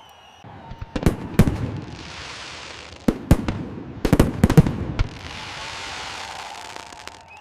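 Fireworks going off: a few sharp bangs about a second in, then a denser run of bangs between about three and five seconds in, each group followed by a hissing, crackling shower.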